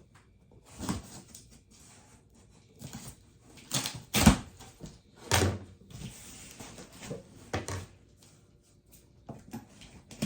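Cardboard meal-kit boxes and packaging being moved and handled: a string of knocks, thumps and rustles, the loudest about four seconds in, with a brief scraping or sliding stretch a little after six seconds.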